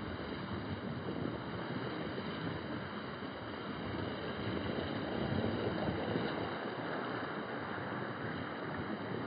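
Steady rushing noise of wind on the microphone mixed with ocean surf, swelling slightly about halfway through.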